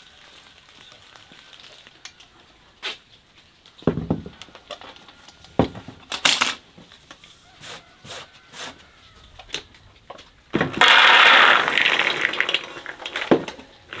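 Metal bucket and aluminium basin clinking and knocking on a wooden table as rose hips are handled. Near the end comes about two seconds of loud clattering as rose hips are tipped into the aluminium basin.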